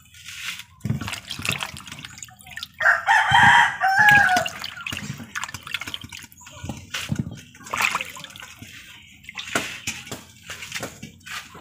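A rooster crows once, about three seconds in, the loudest sound here, its call dropping in pitch at the end. Around it, water splashes and drips as peeled santol fruits are rubbed clean in a basin of water and set into a metal basin.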